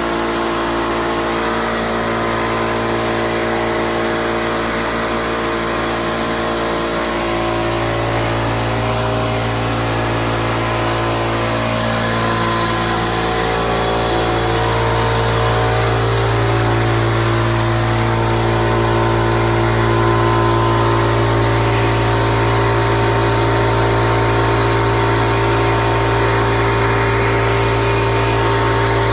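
Spray gun spraying top coat, a hiss of air and finish that stops and starts several times as the trigger is let go, over the steady hum of the motor supplying the air.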